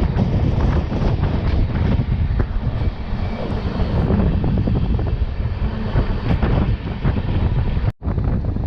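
Moving passenger train heard from on board an LHB coach: steady rush of wind and rumble of wheels on the rails, with a constant patter of small clicks and rattles. The sound drops out for an instant near the end.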